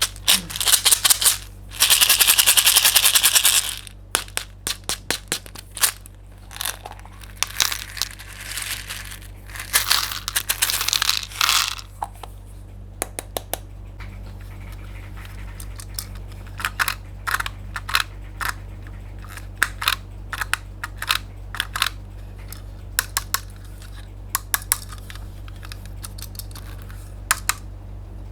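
Small hard candies such as M&M's pouring and clattering into a plastic tub. Dense rattling runs in the first few seconds give way to scattered sharp clicks as single pieces drop, over a steady low hum.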